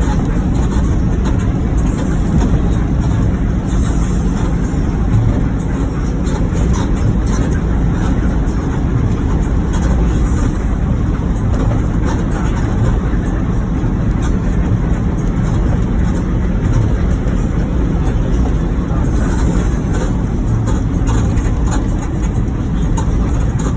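Moving bus: a steady low rumble of engine and road noise, with no horn sounding.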